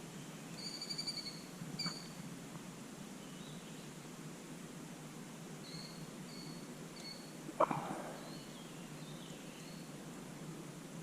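Outdoor ambience with birds calling: a fast pulsed high-pitched call about a second in and again just before two seconds, then a series of short high chirps over the second half. A single sharp knock with a brief ring sounds about two-thirds of the way through.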